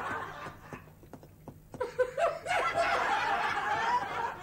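Audience laughter that dies down within the first second, then swells up again about two seconds in and fades near the end.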